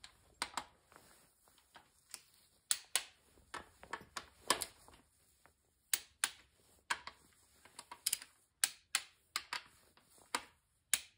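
Ratcheting torque wrench clicking on the ARP connecting-rod bolts of a 440 Mopar V8: sharp clicks in short irregular runs as the bolts are drawn down on the 26 ft-lb pass.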